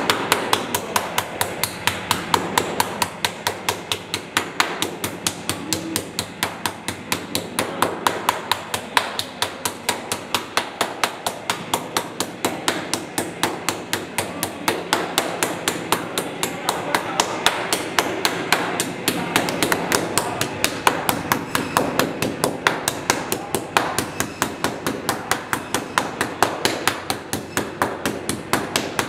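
Meat pounder beating thin slices of meat under plastic wrap against a stone counter, flattening them, in a fast, steady rhythm of about three to four strikes a second.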